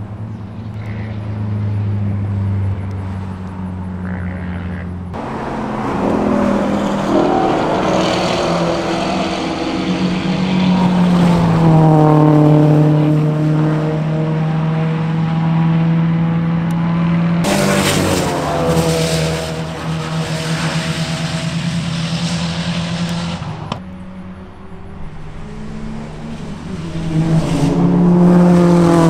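Race car engine at speed on a road course, its pitch climbing and dropping again and again as it revs through the gears, with sudden jumps in the sound about 5, 17 and 24 seconds in.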